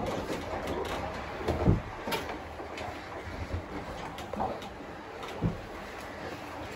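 Knocks and scrapes of a telescoping pole handle being poked and moved about against surfaces, with a sharp thump under two seconds in and another about five and a half seconds in, over a steady low rumble.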